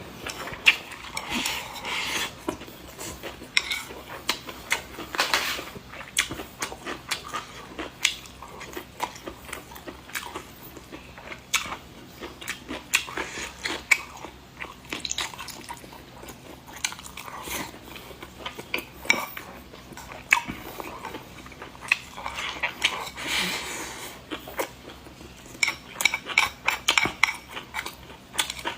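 Close-up eating sounds: chewing, biting and wet mouth noises, with utensils clicking against dishes now and then.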